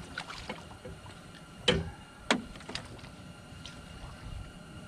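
Two sharp knocks about half a second apart, with lighter taps and rustles around them, as a freshly caught small catfish is handled.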